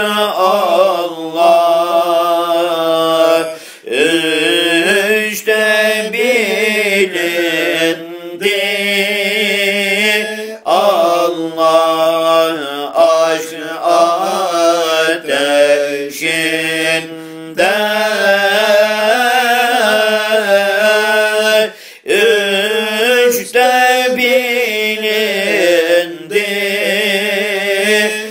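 Voice chanting a Turkish Sufi ilahi (zikr hymn) in long, drawn-out melismatic phrases, with short breaks between them.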